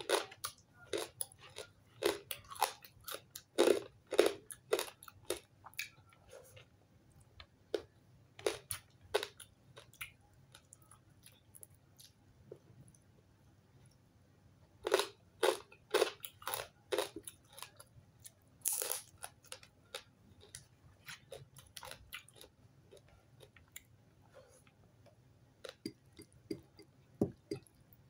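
Chewing and crunching of crispy fried tilapia, in uneven bursts of sharp crunches with quieter stretches between them.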